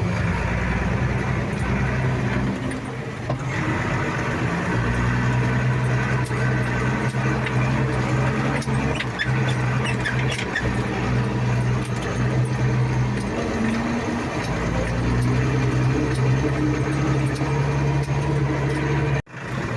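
Tractor engine running steadily while pulling a loaded grain trailer, its note shifting up and down a few times. The sound cuts out for an instant near the end.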